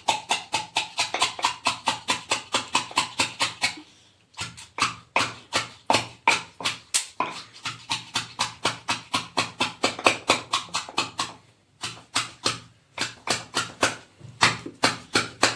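Wooden pestle pounding fresh leaves in a wooden mortar to crush out their juice: a steady run of knocks, about four a second, stopping briefly about four seconds in and twice near the end.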